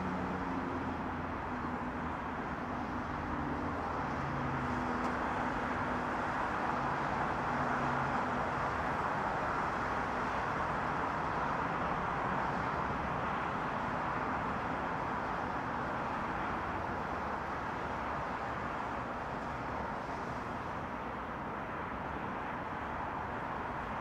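Distant multi-lane highway traffic: tyres and engines blend into a steady, even hiss-like wash. A low engine hum sits under it for the first several seconds and fades out by about eight seconds in.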